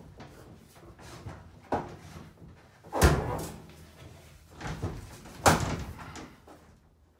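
A tub-surround wall panel knocking and bumping against the framing and the neighbouring panel as it is pushed and shifted into place by hand. There are several sharp knocks, the loudest about three seconds in and another about five and a half seconds in.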